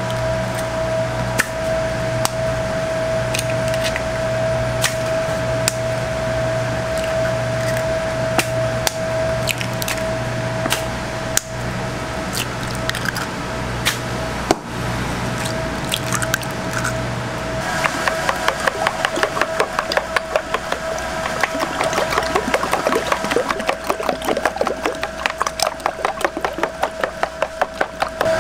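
Eggs being cracked one after another on the rim of a plastic bowl, with sharp taps scattered over a steady hum. About eighteen seconds in the hum stops and the eggs are beaten in the bowl with a thin utensil, a rapid, even clicking of about three strokes a second.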